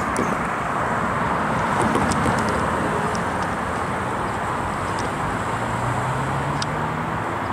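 Freight train rolling past on the rails: a steady, loud rumble of wheels and cars, with a few short high-pitched clicks and squeaks scattered through it.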